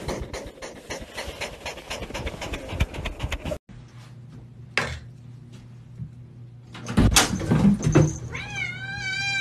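A cat making rapid clicking, smacking mouth sounds. After a cut comes a single click and a few knocks, then a cat's long drawn-out meow begins near the end.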